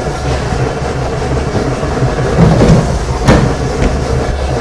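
Electric bakery dough sheeter running with a steady low rumble as biscuit dough is fed between its steel and plastic rollers. A couple of sharp knocks come partway through.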